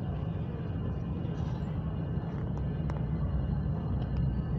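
Steady low rumble of a train running in a railway station, with one faint click about three seconds in.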